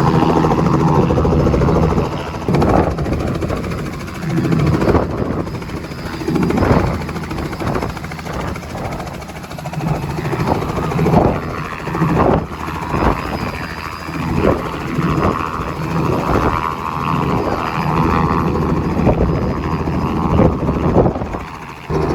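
Helicopter running close by: a steady engine and rotor hum, broken by many irregular sharp knocks and rushes of noise.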